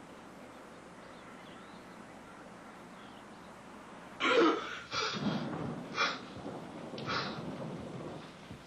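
A man's sudden loud gasp about four seconds in, followed by three sharp, heavy breaths about a second apart.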